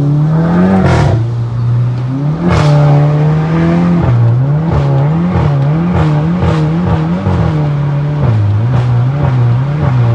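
Car engine revved in short blips, its pitch jumping up and falling back again and again, about two blips a second through the middle. Sharp cracks from the exhaust come with several of the revs, the first about a second in.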